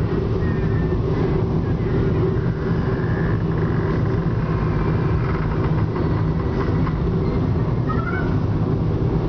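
Steady engine and road hum inside the cabin of a moving car.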